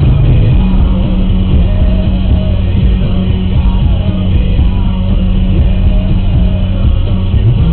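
Rock music playing, with guitar.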